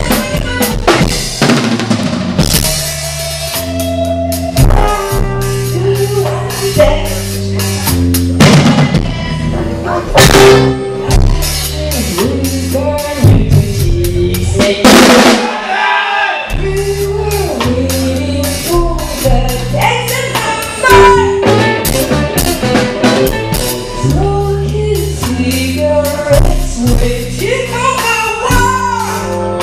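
A live band playing: a drum kit with snare and bass drum keeps the beat over a moving bass line, with a brief break in the low end about sixteen seconds in.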